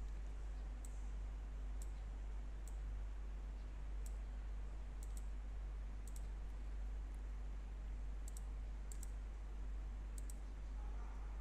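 Computer mouse clicking as wires are drawn in a circuit-simulation program: short sharp clicks, single or in quick pairs, about one a second at uneven intervals, over a steady low hum.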